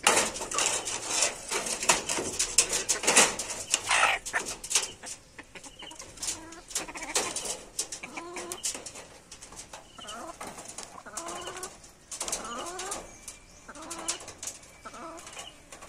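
Chickens clucking in short, scattered calls while pecking, with many sharp taps and clicks from their beaks striking the mango and the wire cage floor.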